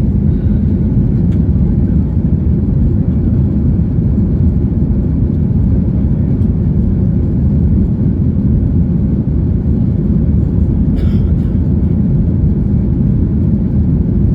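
Cabin noise inside a Boeing 737-800: a loud, steady low rumble from its CFM56-7B jet engines and the air rushing past the fuselage.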